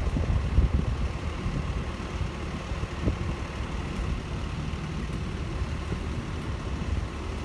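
Wind buffeting the microphone: a gusty low rumble that swells and dips unevenly, with a fainter even hiss above it.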